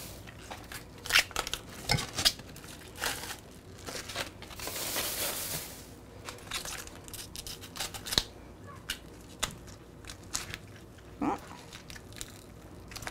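Plastic packaging of ground chicken being worked open: crinkling and tearing, with many scattered sharp clicks and snaps and a longer rustle about four to six seconds in.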